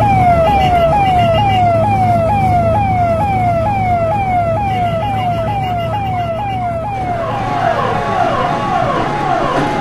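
Ambulance siren sounding a fast repeating yelp, about two pitch sweeps a second. About seven seconds in, the sweeps turn slower and fuller.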